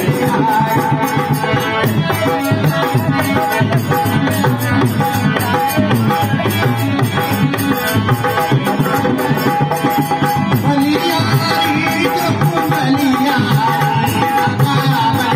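Live Marwari folk bhajan: a harmonium plays steady, held notes under a fast, even hand-drum rhythm with rattling percussion, and a man sings over them.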